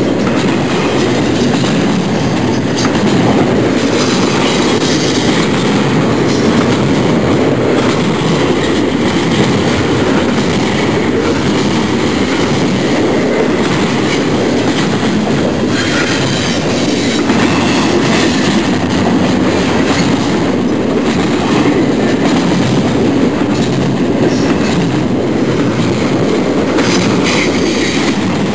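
Double-stack intermodal container train's well cars rolling past close by: a loud, steady noise of steel wheels running on rail, with no horn.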